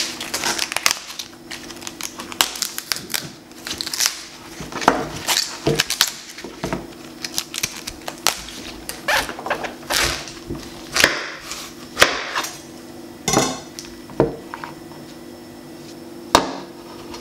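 Crisp snapping and tearing as the leaves of a fresh cauliflower are broken off the head by hand: irregular sharp cracks, some in quick clusters. A faint steady hum sits underneath.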